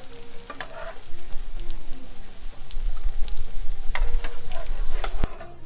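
Walnut-stuffed katayef pastries deep-frying in hot oil: a steady sizzle with scattered sharp pops, cutting off abruptly about five seconds in.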